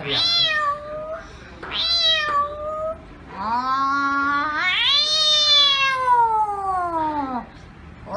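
A woman's voice imitating a cat: two short meows, then one long drawn-out meow that rises and then slowly falls.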